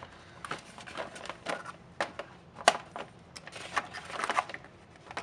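Hobby knife scraping and cutting at the moulded plastic posts of a hollow plastic toy boat hull, irregular scratches and small clicks, with one sharp click a little over two and a half seconds in.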